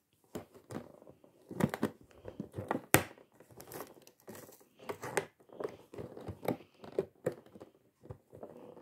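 Clear plastic toy packaging crinkling and crackling as hands handle and pull at it, with irregular crackles and snaps.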